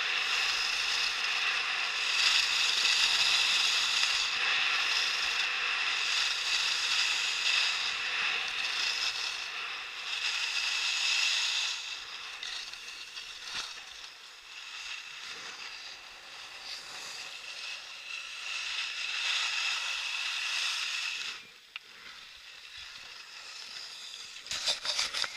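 Skis sliding and scraping over snow, a steady hiss that weakens as the skier slows and drops away about 21 seconds in, followed by a few sharp clicks near the end.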